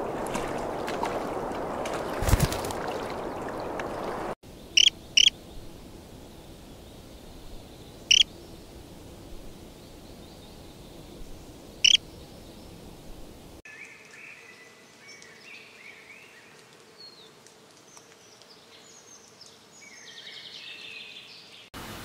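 Rushing stream water, cut off suddenly about four seconds in; then four sharp, loud bird calls spaced over several seconds against a quiet background, followed by a songbird singing a loose run of short high chirps.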